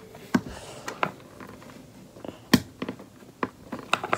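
Several sharp clicks and taps of small plastic paint pots being handled on a tabletop, the loudest about two and a half seconds in.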